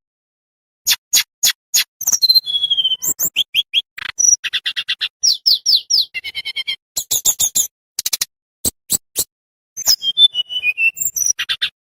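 A tledekan bambu singing a fast, varied song of sharp clicks, short high whistles, falling slurred notes and rattling trills, delivered in quick phrases with brief pauses.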